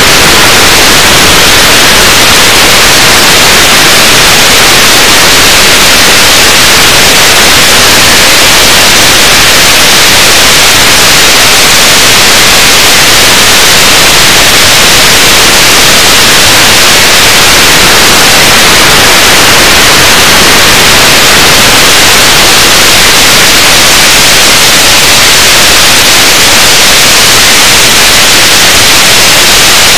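Loud, steady static hiss that does not change, with no motor whine or other sound heard through it.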